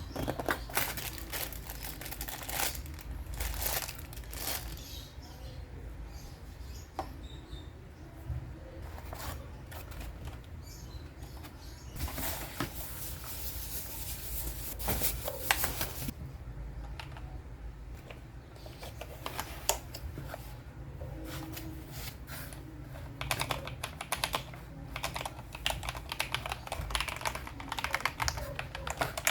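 Keys of a Tecware Phantom+ mechanical keyboard being pressed, an irregular run of sharp clicks. There is a stretch of rustling around the middle, and the key presses come thicker near the end.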